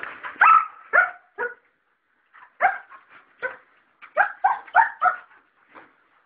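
Šarplaninac (Yugoslav shepherd dog) barking: three short barks, a pause of about a second, then a quicker run of about six.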